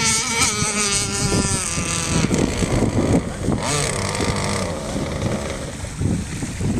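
Zenoah two-stroke gas engine of an R/C mono hull racing boat running at high revs, its high, wavering note fading out about two seconds in. Wind noise on the microphone follows as the boat slows.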